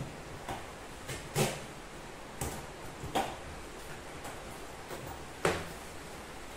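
A hard-shell guitar case being handled and tipped up on its bubble-wrap packing: a series of short, sharp knocks and clicks, the loudest about a second and a half in and again near the end, over a steady hiss.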